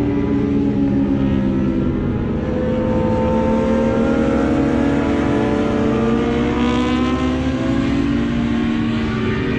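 Several sport motorcycles racing through a corner on a track, their engines overlapping and rising and falling in pitch as the riders shift and accelerate out of the turn.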